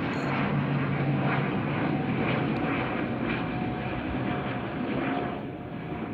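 Small twin-engine military aircraft passing overhead: a steady engine drone with a low hum, easing off about five seconds in.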